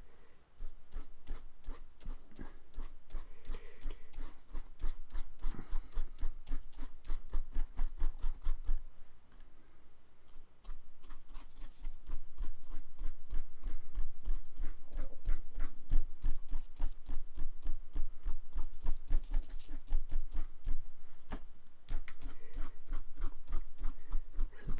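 Paintbrush dabbing and scrubbing on paper laid over cardboard, a rapid run of soft taps and scratches that eases off briefly about ten seconds in.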